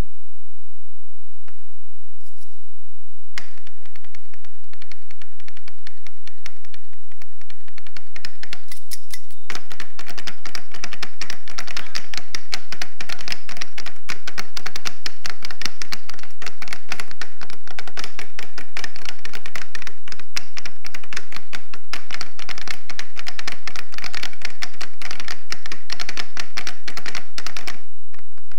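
Several kitchen knives and cleavers chopping rapidly on wooden boards as a percussion routine, a dense clatter of strokes. It starts suddenly a few seconds in, grows louder about ten seconds in, and stops sharply just before the end.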